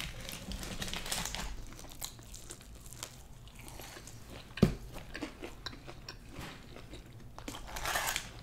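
Close-miked biting and chewing of fried boneless chicken wings and corn, with scattered crunches and mouth clicks and one sharper knock about halfway through.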